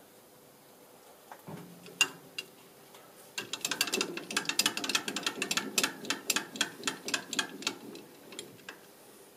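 Micrometer being closed onto a freshly cut external thread. One sharp click about two seconds in, then from about three and a half seconds a quick, even run of clicks, several a second, for about four seconds: the micrometer's ratchet stop clicking as it seats on the thread.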